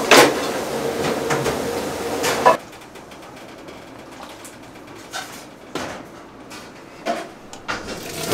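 A steady rush of running water stops abruptly about two and a half seconds in. A few light, scattered knocks and clatter follow.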